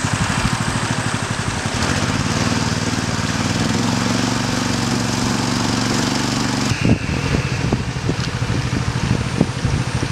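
Boat engine running steadily with a fast, even beat. About seven seconds in its note changes abruptly, and scattered knocks follow.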